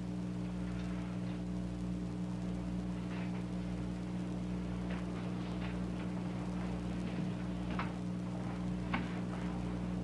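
Steady low electrical hum and buzz on an old soundtrack, with a few faint, scattered clicks and knocks.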